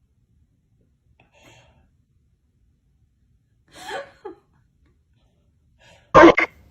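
Short breathy vocal sounds: a quieter one about four seconds in, then a loud, abrupt one near the end.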